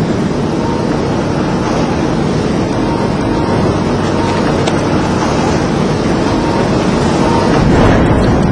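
Steady rumble of city street traffic, growing a little louder near the end.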